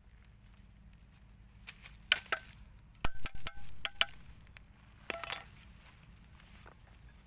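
Several sharp metallic clinks with a short ringing tone, bunched about three to four seconds in, with one more a second later: a round metal lid striking a metal rod. Rustling and scraping of plastic rubbish comes just before the clinks.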